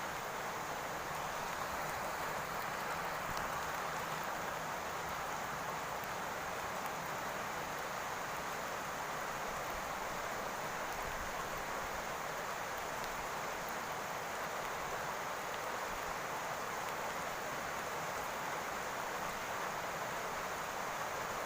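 Steady rain falling on a roof, a dense, even patter with no let-up.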